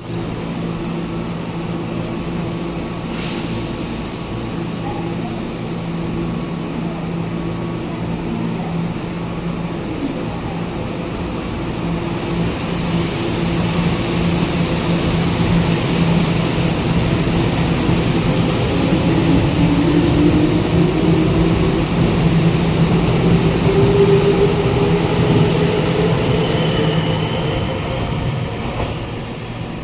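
Keihan 2200-series electric train running, with a steady hum. It gets louder from about halfway, and a motor whine rises steadily in pitch through the second half, as the train gathers speed.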